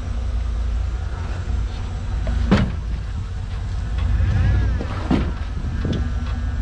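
Jeep Wrangler TJ engine running at low revs as it crawls over rocks and tires, its pitch rising and falling with the throttle. Sharp knocks cut in once about two and a half seconds in and twice more near the end.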